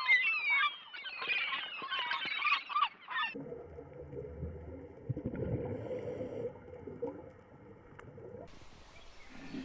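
A flock of poultry calling all at once, many overlapping honking and quacking calls. About three seconds in it cuts abruptly to a low, steady rumbling noise with a faint hum.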